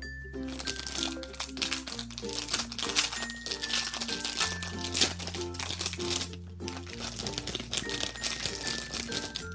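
Clear plastic packaging bag crinkling and rustling as it is handled and pulled open, with a brief pause a little past the middle. Light background music with a bass line and melody plays under it.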